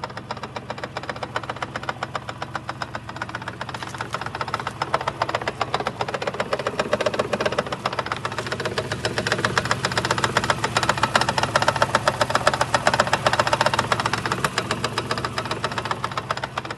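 Rapid, even knocking from the automatic transmission of a Lexus 400h hybrid, over a steady low hum. The knock is the fault being shown. It grows louder from about four seconds in and eases again near the end.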